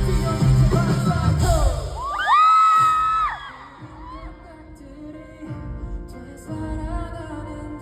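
Live rock band playing with singing. About two seconds in, a voice holds one loud high note for about a second, then the band drops to a much quieter passage with softer vocal lines.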